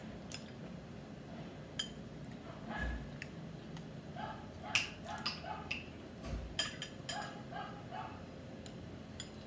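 Metal spoon clinking and tapping against a bowl a few times while eating. In the background a small dog yaps in two short runs of quick barks, about four and seven seconds in.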